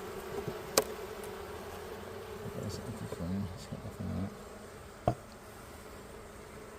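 A honeybee colony buzzing steadily in a freshly opened hive, the hum getting louder as the frames are disturbed. A sharp click comes about a second in and a short knock about five seconds in.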